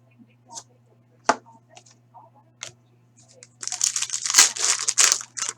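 A few sharp clicks and taps of card handling, then about two seconds of crackling tearing: a foil trading-card pack wrapper being ripped open.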